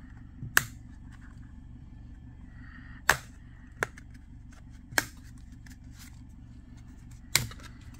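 Plastic back cover of a Doro 1370 mobile phone being prised off by hand: about five sharp clicks spread out as its clips let go.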